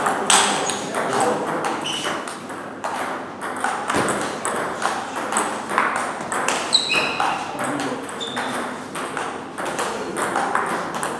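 Table tennis rally: the ball clicks off bats and table in quick, irregular succession, with more clicks from play at a neighbouring table mixed in. One of the bats is faced with Sauer & Tröger Schmerz OX long-pimple rubber on a RED+BLACK Kazak C blade.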